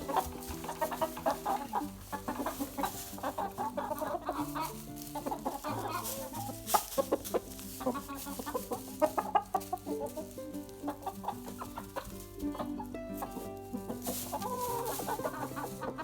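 Several chickens clucking, with background music underneath.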